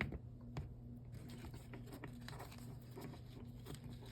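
Faint rustling and light scratching with a few soft ticks, as a fabric strap is pulled and slid off its metal clips and D-rings.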